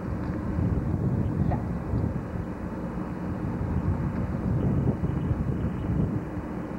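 Steady low outdoor rumble with no distinct events, the kind of noise a vehicle running nearby or wind on the microphone gives.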